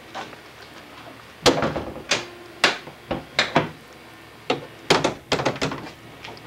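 A dozen or so irregular sharp knocks and clacks, some in quick clusters near the middle and end; no engine is running.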